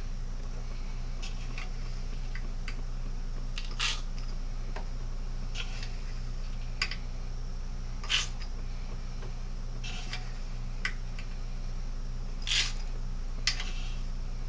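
Scattered sharp clicks and brief rattles of shotgun shells, a funnel and shot pellets being handled while wax slugs are filled, over a steady low hum.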